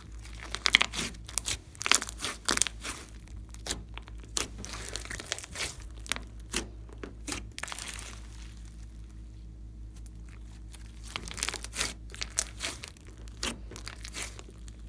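Glossy slime mixed with clay and glitter being stretched and pressed by hand, giving sticky crackles and pops of air pockets in dense clusters, with fewer pops a little past the middle.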